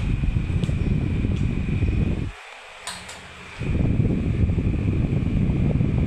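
Electric fan running, its airflow rushing loudly on the microphone with a steady high motor whine. The rush cuts out for about a second just past the middle, with one click in the gap, then comes back.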